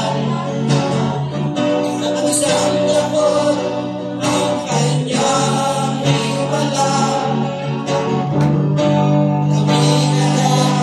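A group of men singing a gospel song together into microphones, with an electric guitar playing along.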